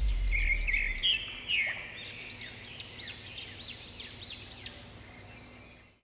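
A songbird chirping: a few short high notes, then a quick regular run of rising-and-falling whistled notes, growing fainter until the sound cuts off just before the end. The last of the background music dies away in the first second.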